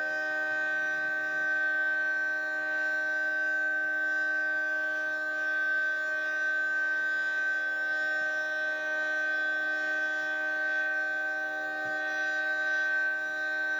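Federal Signal 3T22 three-tone electromechanical outdoor warning siren sounding a steady chord of several held tones at a constant pitch, its level wavering slightly.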